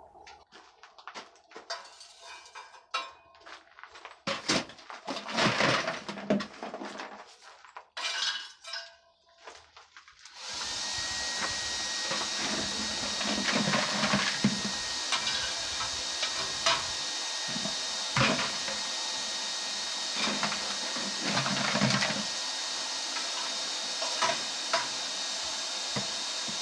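Scattered clinks and rattles of lumps and metal being handled, then about ten seconds in the coal forge's air blower starts with a steady rushing hiss, with intermittent clinks and knocks over it.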